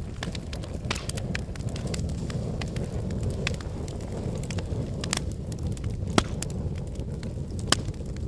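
Honda Transalp 650 V-twin on the move, heard as an even low rumble at the microphone, with scattered sharp ticks and crackles and a louder tick about six seconds in.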